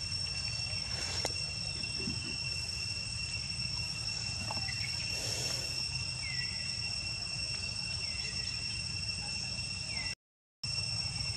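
Steady insect drone, a continuous high-pitched tone at two pitches, over a low outdoor rumble, with a few faint short chirps about halfway through. The sound drops out for a moment near the end.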